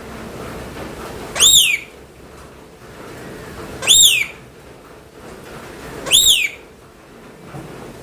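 Pet parrot giving a short, loud whistled call three times, about two seconds apart, each note arching up and then falling.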